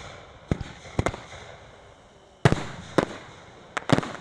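Fireworks shells bursting overhead in a quick irregular series of about seven sharp bangs. The loudest comes about two and a half seconds in, and a tight double bang falls near the end.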